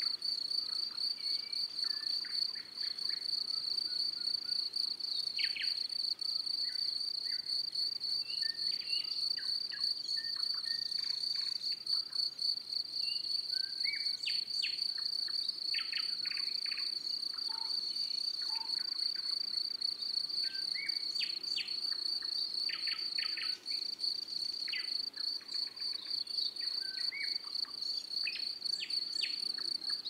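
An insect's steady, high-pitched trill runs on without a break, with short bird chirps scattered through it.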